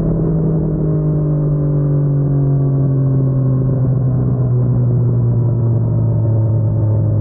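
Yamaha MT-09 three-cylinder crossplane engine through an Akrapovic carbon full-system exhaust, off the throttle, its revs falling slowly and steadily as the bike slows.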